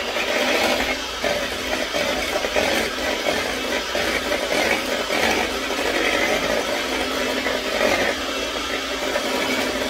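Electric mixer running steadily at speed, beating butter tart filling in a bowl, with a light rattle.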